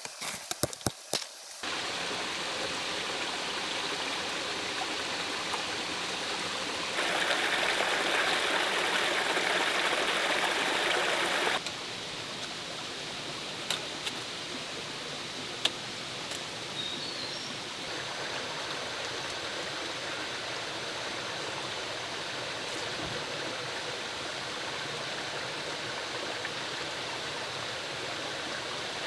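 Running water of a stream, a steady rushing noise that turns louder for about four seconds in the middle, with a few sharp clicks just before it starts.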